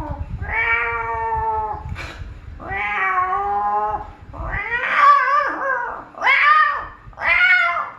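A man's exaggerated, high-pitched wailing 'ooh' noises while straining to lift a weight, five long drawn-out cries that rise and fall in pitch, the last few shorter.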